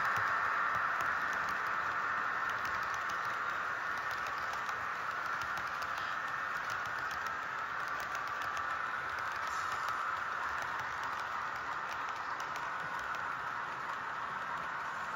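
HO scale model freight train rolling past on its track: a steady whine with a rattle of wheels and faint clicks, loudest at the start as the locomotive passes and fading a little as the cars and caboose go by.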